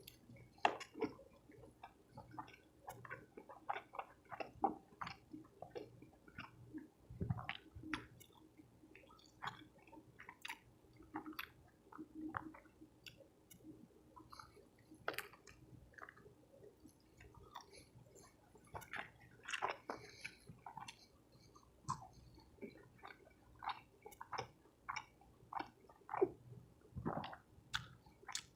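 A person chewing soft tacos with the mouth close to the microphone: irregular wet smacks and clicks of chewing, with now and then a bite.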